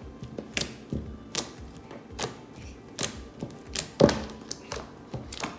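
Fluffy slime being squished and poked by hand, giving irregular wet clicks and pops, the loudest about four seconds in.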